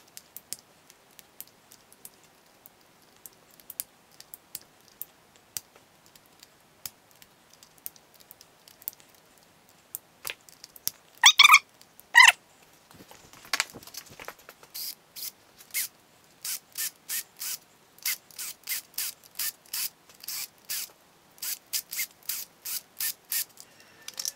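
Ratchet wrench undoing the cam carrier bolts on an Audi 5.2 L V10 engine: scattered single clicks at first, two short squeaks about halfway through, then steady back-and-forth ratcheting at about two strokes a second.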